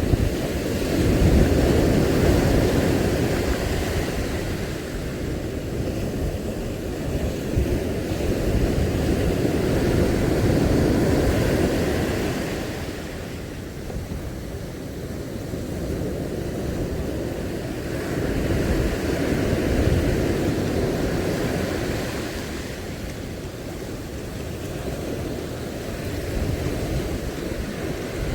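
Sea surf washing against a rocky shore, swelling and easing in slow surges several seconds apart, with wind rumbling on the microphone.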